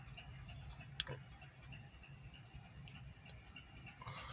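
Quiet background: a faint steady low rumble, a single sharp click about a second in, and a few faint high bird chirps.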